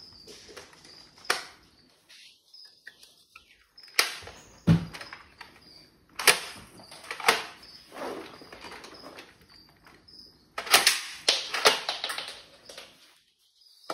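Plastic clicks and knocks from a Batman Batbot toy robot as its arms and parts are worked by hand, coming in scattered single clicks and then a quick cluster of knocks near the end. A faint high chirp repeats about twice a second underneath.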